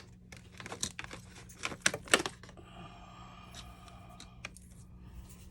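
A quick run of light clicks and taps, loudest about two seconds in, as small hard phone parts and tools are handled on a repair bench, over a steady low hum.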